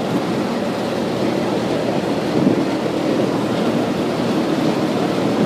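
Canal boat underway, its motor running steadily, with water along the hull and wind on the microphone.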